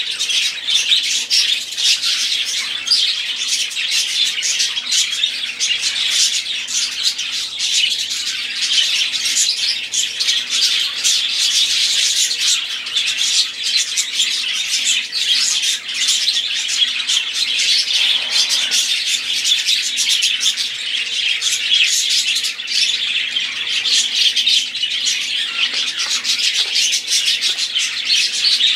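Several budgerigars chattering without a break: a dense, overlapping mix of quick chirps, warbles and squawks.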